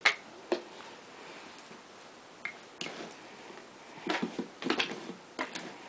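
A dog playing with a sock and a plastic bottle cap on carpet: scattered light clicks and soft knocks, with a quick run of them about four to five seconds in.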